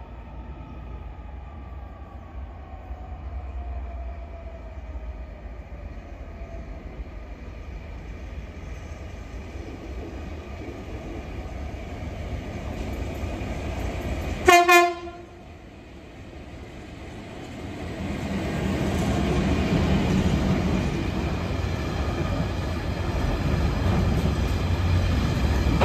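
A freight train of a locomotive and Network Rail hopper wagons approaching and passing through the station. About halfway through, the locomotive gives one short, loud horn blast, and then the rumble of the engine and the wagon wheels grows louder as it runs past.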